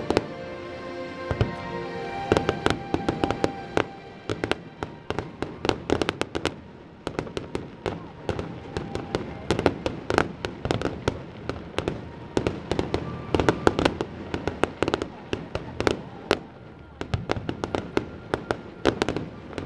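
Fireworks going off in quick succession: many sharp bangs and crackles from aerial shells, with music playing under them for the first few seconds.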